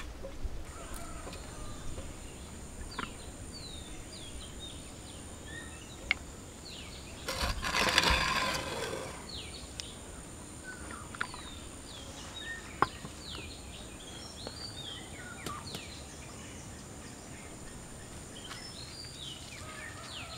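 Outdoor ambience of many small birds chirping, short falling chirps scattered throughout, over a steady high-pitched whine. A loud rush of noise lasts about two seconds around eight seconds in, and there are a few sharp clicks.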